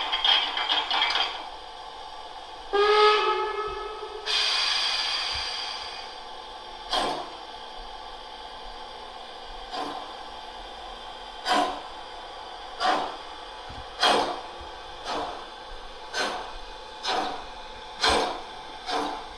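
Class 64 steam tank locomotive model's LokSound sound decoder playing a departure through its loudspeaker. A brief rapid ringing at the start, then a steam whistle blast about three seconds in and a hiss of steam. From about seven seconds come slow exhaust chuffs that gradually quicken as the locomotive pulls away.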